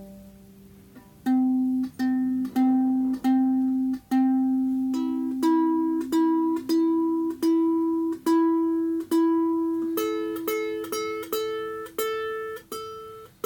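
Enya soprano ukulele strung with Fremont Blackline low-G strings, played as a slow melody of single plucked notes. The notes start about a second in, come one or two a second, step up in pitch and quicken near the end.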